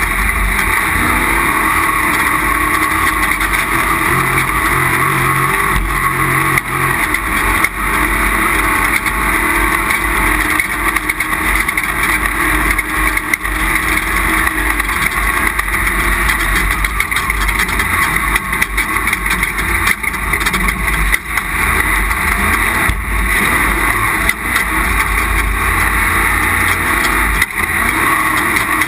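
Off-road race vehicle driven hard, heard from on board: its engine runs under a steady wash of wind and road noise, with many knocks and rattles from the rough ground.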